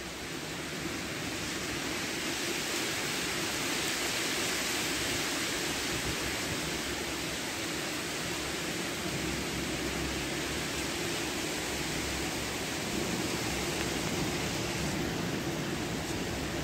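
Steady rain falling in a storm: an even hiss that swells slightly about a second in.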